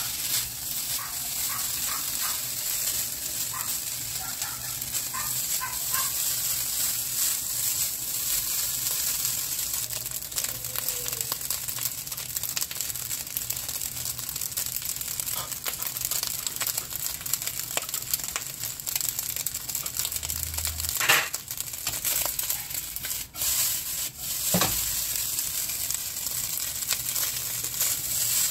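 Rice sizzling as it fries in a nonstick wok, with a spatula scraping and turning it over and over. There are a couple of louder knocks about three-quarters of the way through.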